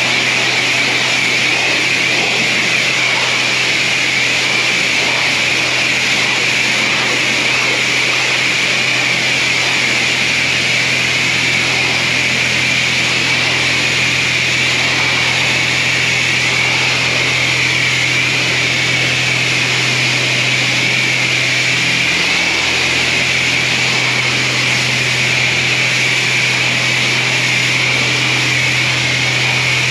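A machine running steadily: a loud, even hiss with a low hum beneath it, the hum wavering briefly about two-thirds of the way through.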